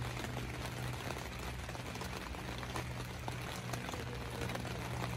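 Steady rain falling, an even patter with scattered small drips, over a low steady hum.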